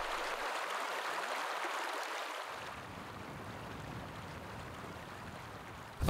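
Fast-flowing mountain river rushing over rocks, a steady hiss of water that grows slightly quieter in the second half.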